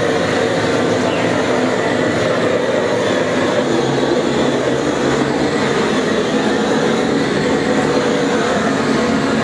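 Gas blowtorch running with a steady roar, its flame singeing a slaughtered sheep's carcass.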